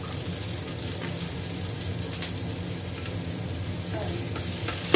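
Sliced onion, garlic and ginger sizzling steadily in hot oil in a wok as the onion is tipped in and stirred with a spatula, with a few light scrapes and a sharp knock near the end.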